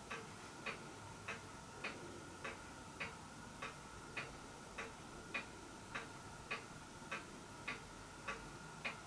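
Faint, steady ticking at an even pace, a little under two ticks a second, over a soft steady hum.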